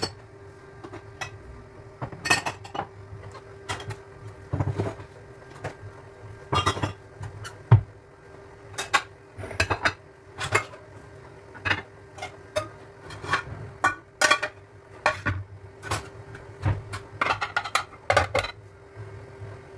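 Dishes and pot lids clattering as they are handled and put away into a kitchen cupboard: a long run of irregular clinks and knocks, with a steady faint hum underneath.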